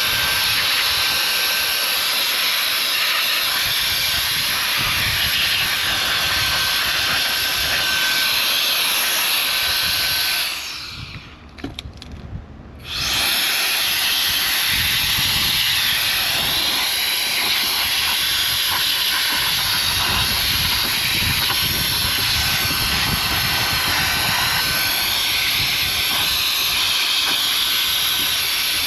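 Handheld air blower blowing dirt off a small RC buggy: a steady, loud rush of air that stops for about two seconds near the middle, then starts again.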